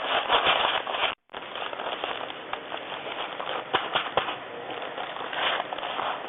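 Vertical packing machine running, with irregular crackling and clicking as the sealed plastic film bags are handled; the sound cuts out briefly about a second in.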